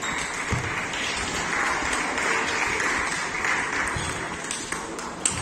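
Applause in the hall, lasting about three seconds, with a single sharp click near the end.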